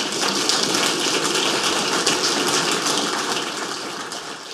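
Audience applauding, a dense steady clapping that tapers off near the end.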